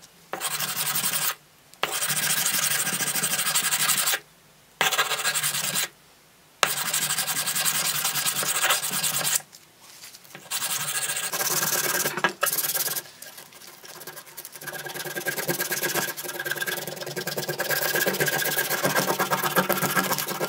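Hand-sanding a heat-treated steel knife blade with sandpaper on a wooden backing block. Long scraping strokes of one to three seconds are broken by short pauses, and they run on more continuously in the second half.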